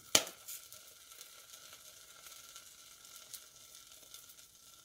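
Last popcorn kernels popping slowly in a hot pot: one sharp pop just after the start, then a few faint scattered pops over a faint sizzle of hot oil.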